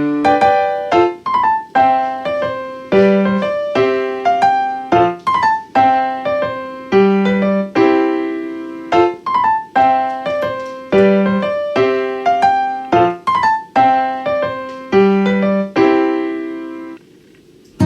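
Background piano music: a gentle repeating phrase of struck notes. It stops about a second before the end.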